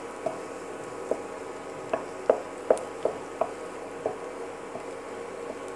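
Wooden spatula stirring garlic and black pepper frying in ghee in a nonstick frying pan: a faint steady sizzle with several light, irregular taps and scrapes of the spatula against the pan.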